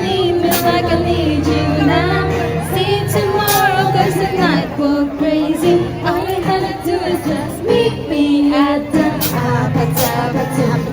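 Music with a woman singing a melody over steady accompaniment.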